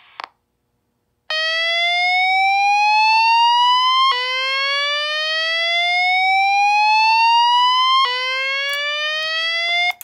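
Notifier VEC 25/50X voice evacuation panel sounding its whoop evacuation tone through an EST speaker strobe. After about a second of silence, a loud, buzzy tone sweeps upward over three to four seconds, drops back low and rises again, three times, and cuts off abruptly near the end.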